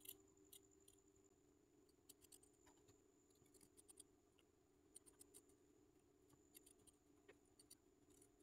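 Steel scissors snipping through thin buckram along a curved scalloped line. The snipping is faint and comes in short runs of quick snips every second or so.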